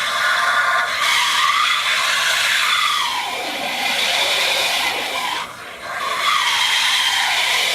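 Vinyl record scratched back and forth on a turntable, the sound sweeping up and down in pitch, with a brief drop-out about five and a half seconds in.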